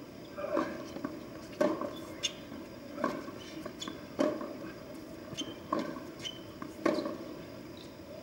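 Tennis rally on a hard court: sharp pops of the ball struck by rackets and bouncing on the court, about one every second or so, with brief high shoe squeaks between them.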